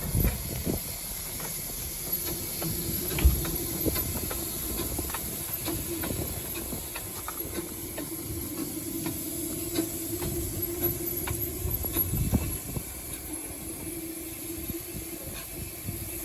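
Miniature steam railway locomotive and train: a steady hiss and running noise, with a steady hum through most of it and scattered clicks and knocks.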